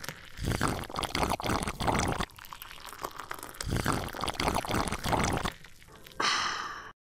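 Liquid being poured into a glass, splashing and dripping in two spells, then a short brighter pouring sound near the end that cuts off suddenly.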